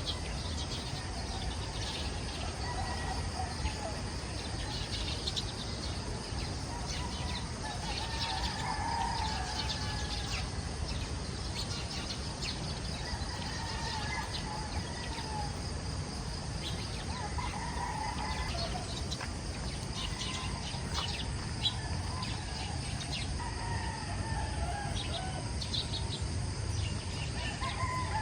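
Roosters crowing again and again, each crow lasting about a second, among short high bird chirps, over a steady low background noise.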